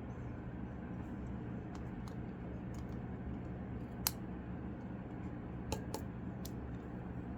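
Flush wire cutters snipping the excess component leads off a soldered circuit board: a few sharp clicks, mostly in the second half, over a steady low hum.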